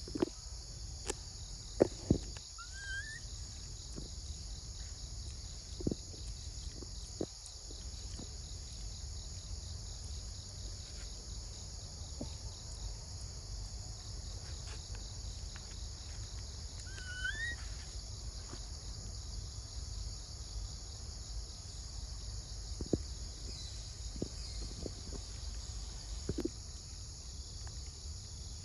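Steady high-pitched insect chorus of crickets or cicadas in tropical forest. Scattered sharp clicks are heard, with a short rising chirp about two and a half seconds in and another past the middle.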